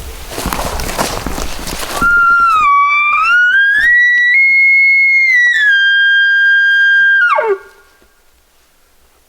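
An elk bugle: a loud, high whistling call that climbs in steps, holds at its peak, then steps down and drops sharply into a low grunt at the end, lasting about five seconds. Rustling comes before it.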